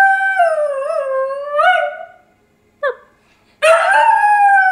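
Small tan dog howling with its head thrown back: one long howl that slides down in pitch, wavers and rises briefly before breaking off about two seconds in, a short cry, then a second howl starting near the end.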